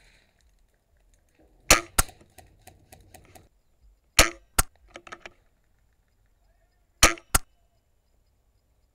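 Airsoft gunfire: three pairs of sharp cracks, the two in each pair about a third of a second apart, with lighter clicks after the first pair.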